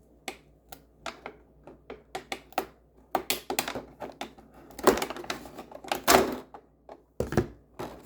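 Clicking, tapping and rustling of cardboard and plastic packaging being handled and opened by hand, with a few louder tearing or crinkling bursts past the middle and a thump near the end.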